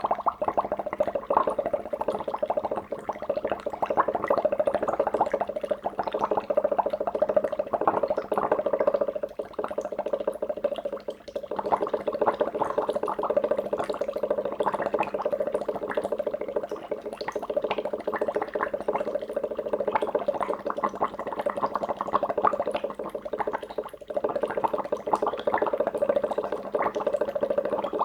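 Water at a rolling boil: continuous dense bubbling and popping, with no gas burner noise, easing briefly twice.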